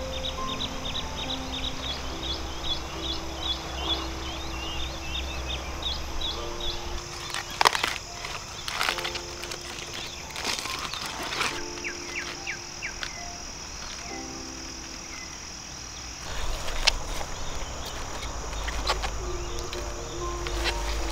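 Soft background music with held notes over outdoor ambience: birds chirping in quick repeated calls, and several sharp snaps and rustles as lettuce heads are cut with a knife and handled into a wicker basket.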